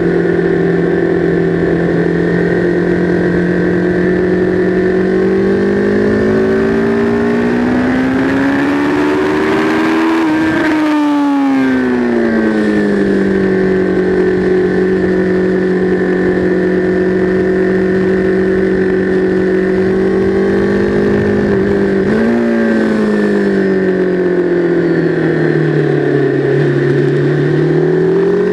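Sport bike engine heard onboard at speed on a track, with wind rush. The revs climb to a peak about ten seconds in and then fall away. A little past twenty seconds they jump sharply on a downshift into second gear, then sag and climb again under acceleration near the end.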